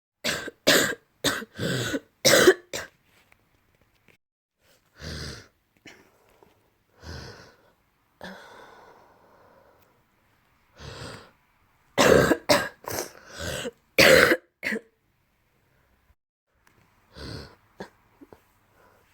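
A person coughing with phlegm in the throat: a quick fit of about five loud coughs, then quieter single coughs and breaths, then another fit of loud coughs about twelve seconds in.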